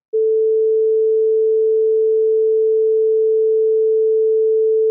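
A pure 440 Hz sine-wave test tone set 10 dB below the 0 dB reference, the level most people hear as about half as loud. It holds one steady, unchanging pitch for about five seconds.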